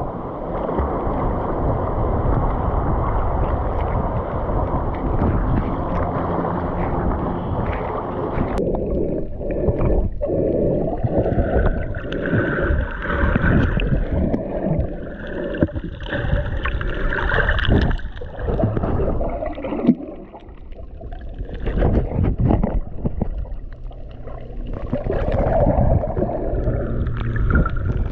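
Muffled sloshing and gurgling of seawater around an action camera while snorkeling. About eight seconds in the sound turns abruptly duller and more uneven.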